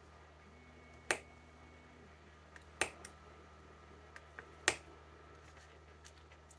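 A few sharp clicks, about four loud ones spaced a second or two apart with fainter ticks between, as a cutting tool cuts and scores into a small plastic model-kit part, over a faint steady low hum.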